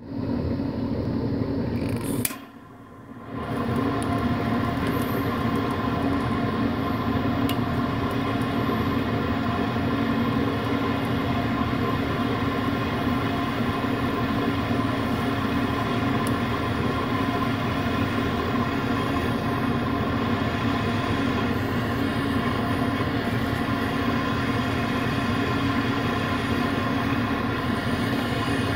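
Butane torch flame running steadily, a constant rushing noise that drops out for about a second just after two seconds in, then runs on unchanged.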